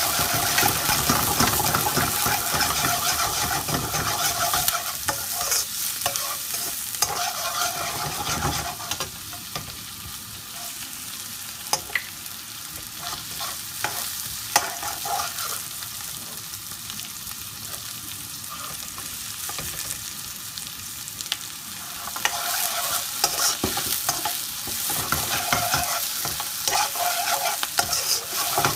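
Chopped onion, red pepper and garlic sizzling in a hot wok while a metal ladle stirs and scrapes them, with sharp clinks of the ladle against the pan. The stirring is busier at the start and again near the end, and quieter through the middle.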